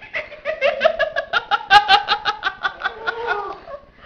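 A person laughing in a long run of quick pulses, about six a second, the pitch climbing toward the middle and sinking as it trails off near the end.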